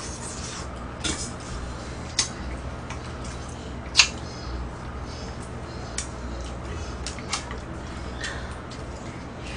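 Chopsticks clicking against a ceramic bowl and plate while eating, about five sharp clicks with the loudest about four seconds in, over a low steady hum.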